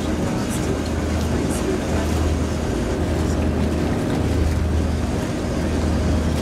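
Vaporetto water bus's diesel engine running steadily, a constant low hum under a wash of noise.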